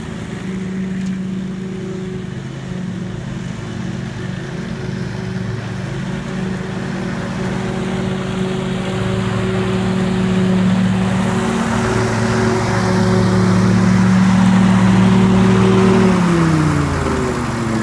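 Scag Tiger Cat II zero-turn mower's engine running steadily with its bagging system, growing louder in the second half; near the end the engine pitch falls as it throttles down.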